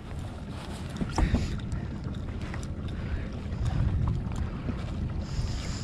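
Wind buffeting the microphone over water around a kayak, a steady low rumble that swells around four seconds in, with a few light knocks about a second in.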